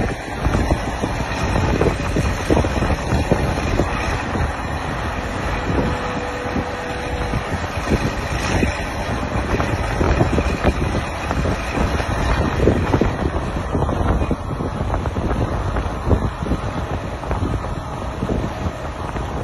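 Wind buffeting the microphone over the steady running of truck-crane diesel engines hoisting a fishing boat.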